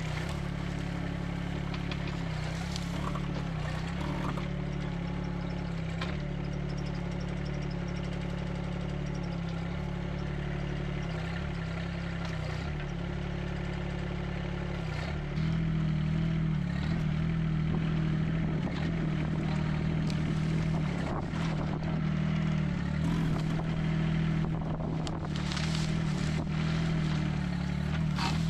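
Nante NT12 mini excavator engine running steadily, getting louder about halfway through as the arm works. Brief knocks and scrapes come in the last part as the ripper tooth works into the ground and brush.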